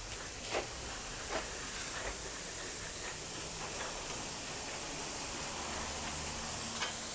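Steam locomotive hissing steadily as it slowly backs up to a carriage for coupling, with a few soft knocks about every three quarters of a second early on and a sharper knock near the end.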